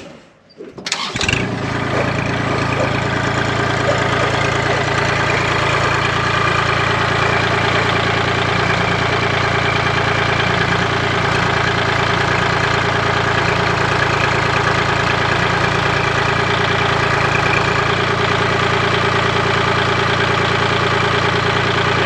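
Kubota compact tractor's diesel engine starting about a second in, then running steadily while its front loader lifts the log.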